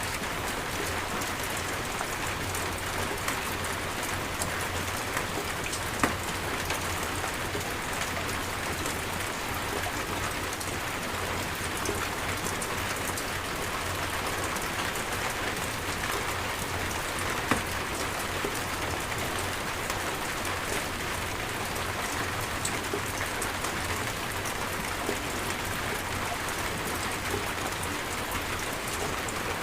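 Steady rain falling, an even hiss peppered with the sharp ticks of single drops striking a surface; twice a louder single drop-hit stands out.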